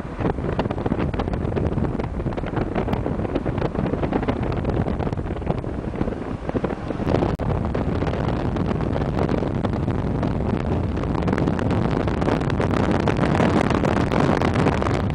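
Wind buffeting the microphone of a moving car, loud and steady, over the car's road noise.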